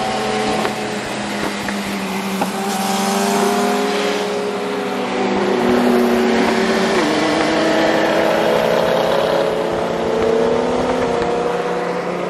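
Engines of cars and a sport motorcycle accelerating hard side by side in a roll race, heard from inside one of the cars. Several engine notes climb slowly in pitch, and one drops sharply about seven seconds in at a gear change.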